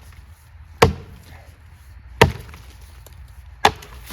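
Three sharp chopping blows into wood, evenly spaced about a second and a half apart.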